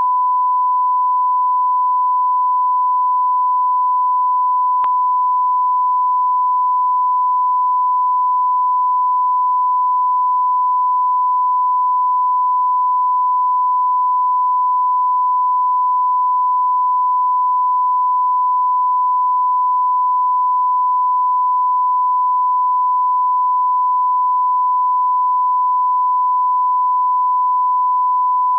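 Steady 1 kHz reference tone, one unbroken pure beep at constant level, played with colour bars as the line-up tone for setting audio levels at the head of a broadcast programme.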